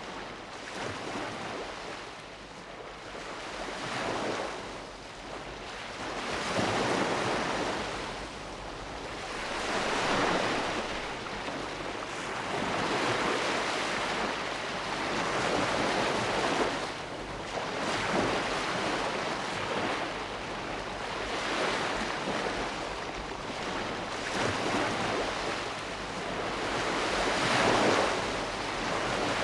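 Sea waves breaking and washing on a shore, the surf swelling and falling back about every three seconds.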